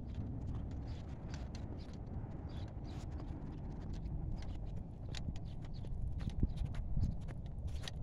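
Footsteps crunching in fresh snow, a quick run of short irregular crunches over a low steady rumble.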